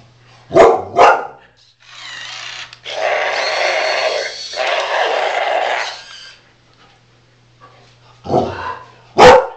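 Dog barking: two sharp barks half a second apart near the start and two more near the end. Between them is a noisy sound lasting about four seconds, broken briefly midway.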